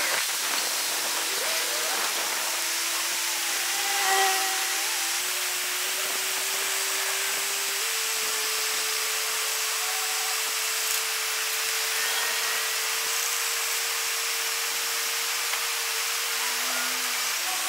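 Crawler crane's diesel engine running steadily during a lift. Its pitch steps up about eight seconds in and drops back near the end, over a steady hissing background.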